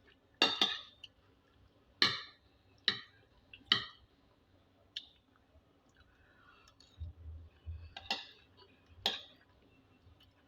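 Eating sounds during a meal of stew and rice: about seven sharp clicks spaced a second or more apart, with a soft low thud about seven seconds in.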